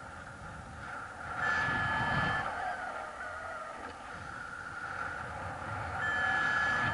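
Wind buffeting the microphone of a camera on a paraglider in flight, a steady rumbling rush. A steady high beep sounds twice, briefly about a second and a half in and again near the end.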